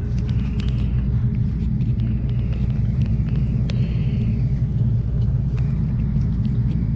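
Amtrak Cascades passenger train running: a steady low rumble with scattered light clicks and ticks, and two brief hisses, about one second and four seconds in.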